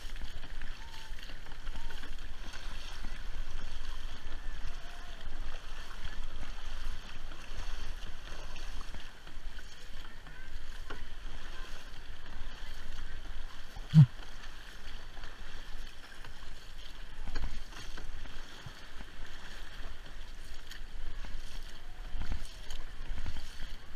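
Crew paddling a big voyageur canoe, with paddle blades stroking the water and water rushing along the hull. A single sharp thump a little past the middle is the loudest moment.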